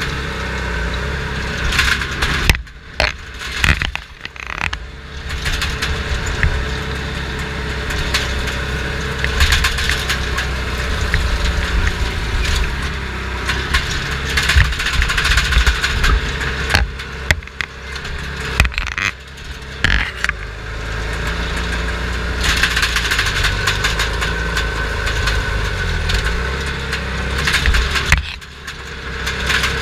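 Wildfire bulldozer's diesel engine running hard, heard from inside the cab, with cracking and crushing of brush and wood as the dozer pushes through the vegetation to contain the fire. The engine noise drops off briefly a few times.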